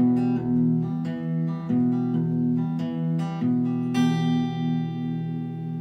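Acoustic guitar playing the closing bars of a song, a run of picked chords with no voice. A last chord is struck about four seconds in and left to ring out, fading.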